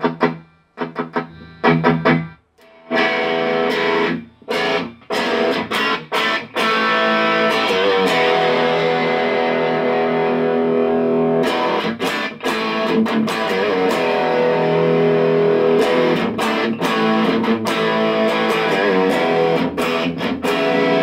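Electric guitar played through a Marshall JCM800 2203 valve amp head as a play-test after repair. It starts with a few short picked notes, then moves into sustained, overdriven chords, heard in the room without a microphone on the speaker.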